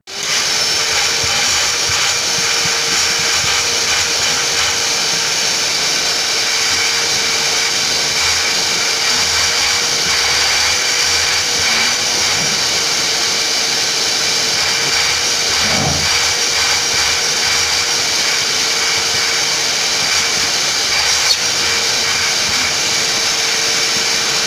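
Vacuum cleaner running steadily with a constant whine, with a small knock about two-thirds of the way through.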